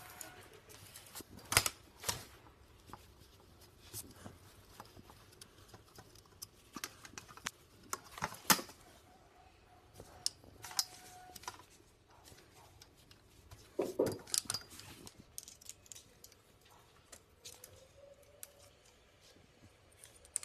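Handling noise from a patio umbrella's black plastic upper disk and its ribs being worked by hand: scattered clicks, taps and knocks, with a few sharper knocks spread through.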